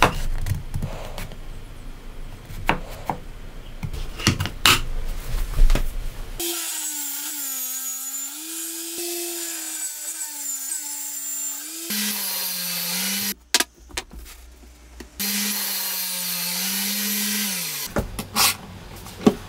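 Clicks and knocks of a wooden jig and toggle clamps being handled, then a power tool motor running in a few stretches with a wavering pitch and a high hiss. Its pitch falls as it stops about 18 seconds in, followed by more clicks.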